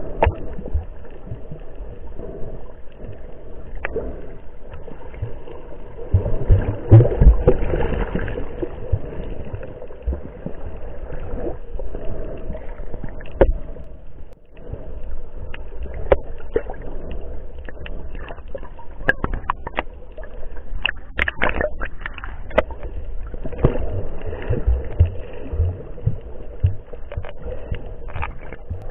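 Muffled underwater water noise heard through an action camera's waterproof housing: a steady churning rush with scattered clicks and gurgles. It swells louder about seven seconds in, and there is a cluster of sharp clicks about twenty seconds in.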